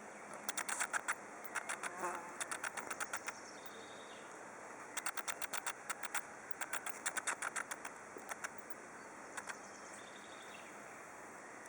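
A spider making rapid trains of dry clicks, in several bursts of a second or two each with short pauses between. This is a defensive sound made when the spider is disturbed.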